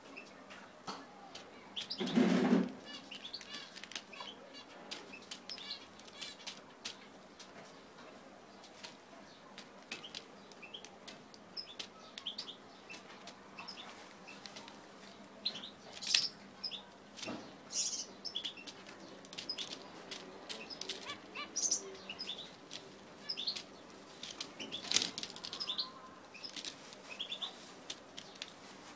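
Zebra finches fluttering their wings and giving short, scattered chirping calls, with one louder burst about two seconds in.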